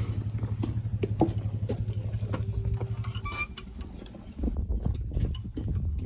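Light metallic clinks and ticks of hand tools, a wrench and socket being handled and used on metal, over a steady low rumble that eases off about three seconds in.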